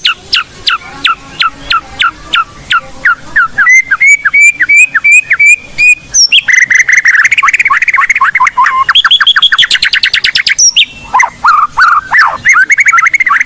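White-rumped shama (murai batu) singing hard. It opens with a string of quick downward-sweeping whistles, speeds into rapid repeated notes about four seconds in, and then runs into a dense, fast chatter of notes.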